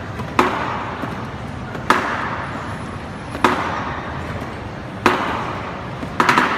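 Lion-dance cymbals clashing slowly, one ringing crash about every second and a half, then a quick flurry of clashes near the end.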